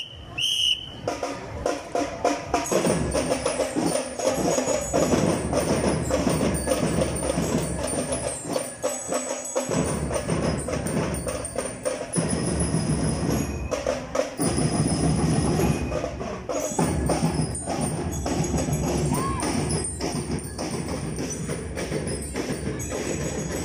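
Drum and lyre band playing: drums beating a steady rhythm while bell lyres ring out the tune. A short whistle blast comes at the very start.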